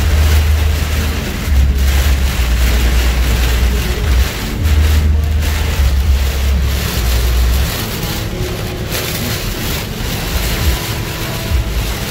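Storm-force wind and driving rain, a dense rushing noise, with wind buffeting the microphone in heavy low rumbling gusts that ease about eight seconds in.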